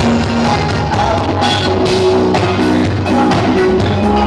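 Live rock band playing loud: drum kit keeping a steady beat under bass and electric guitar.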